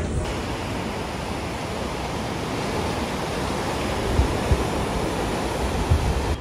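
Ocean surf washing against a rocky shore: a steady rushing noise, with a few low thumps of wind on the microphone in the last couple of seconds.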